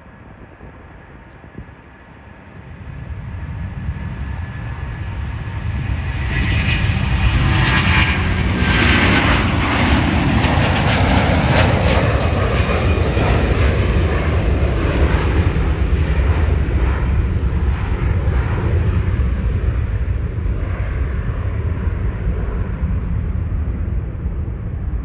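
Airbus A330-300's twin Rolls-Royce Trent 700 turbofans at takeoff thrust as the jet climbs out past overhead. The engine noise builds over the first few seconds, is loudest with a hissing upper edge about eight to twelve seconds in, then slowly fades to a low rumble as the aircraft climbs away.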